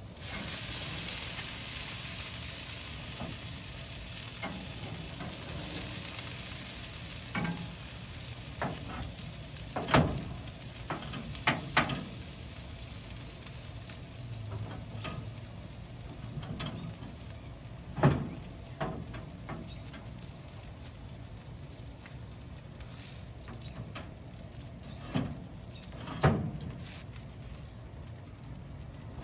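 Marinade sizzling on meat over the hot smoker: a hiss that starts suddenly and slowly dies down. A handful of sharp knocks and clicks come through it.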